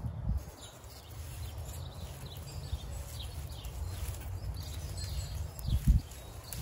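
Close handling and rustling noise as twine is wound around pea vines on a trellis: a low rumble with dull thumps, the loudest about six seconds in. Small birds chirp faintly and repeatedly in the background.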